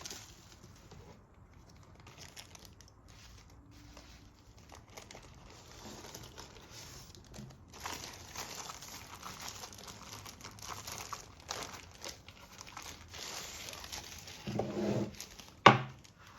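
Packaging crinkling and rustling as it is handled and unwrapped, busier from about halfway through, with a dull knock and then one sharp click near the end.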